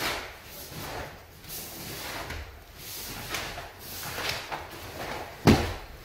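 Karate gi fabric snapping and swishing with the punches and blocks of a kata, about two a second, with soft thuds of bare feet on foam mats. One louder, sharper snap with a thud comes near the end.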